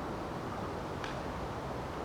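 Steady outdoor rushing noise, with one brief high chirp about a second in.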